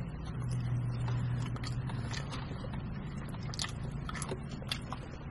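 Two people chewing chicken sandwiches close to the microphone: wet chewing with lip smacks and small clicks, and a low hum during the first two seconds.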